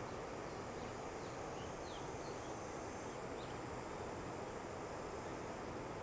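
Distant steady roar of the H3 rocket's LE-9 hydrogen-oxygen main engine firing on the test stand, with a few faint bird chirps over it.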